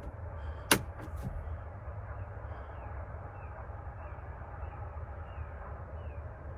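A single sharp click from the Polaris Ranger XP Kinetic's controls about three-quarters of a second in as a start is tried with a foot on the brake, then only a steady low hum with faint, evenly repeated short chirps. The electric UTV fails to wake, which the owner puts down to a cold battery.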